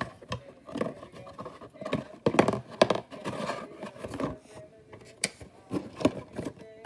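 Irregular hollow knocks and clacks of a cardboard box being handled and shaken, with a few sharper raps, the loudest a little after two seconds in and about five seconds in.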